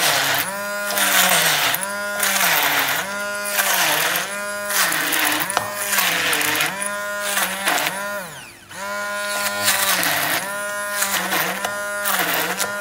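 Electric hand blender grinding soaked, drained mung beans with no water. Its motor whine sags in pitch and recovers over and over as the head is pushed into the beans and lifted, with a gritty churning underneath. It eases briefly a little past the middle.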